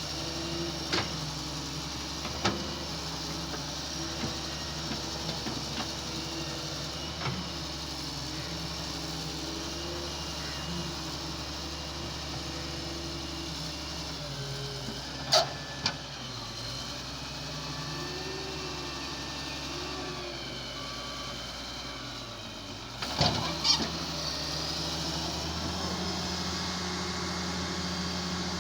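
Excavator engine running steadily, with scattered sharp metallic clanks, the loudest cluster about two-thirds of the way through. A short run of evenly repeated beeps sounds in the middle.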